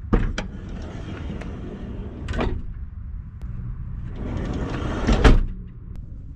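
Side sliding door of a Bug-truck panel van's camper box: the latch clicks open, the door slides back with a rolling scrape, then slides forward and shuts with a loud thud about five seconds in.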